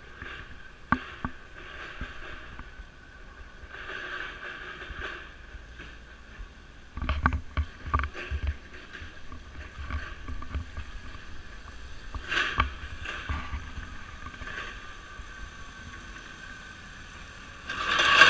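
Outdoor street sound with scattered knocks and some low rumbling, then a forklift truck driving close past near the end, its noise swelling to the loudest point as it goes by.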